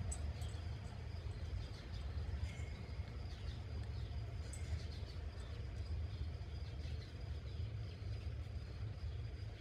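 Outdoor background: a steady low rumble with faint, short bird chirps now and then.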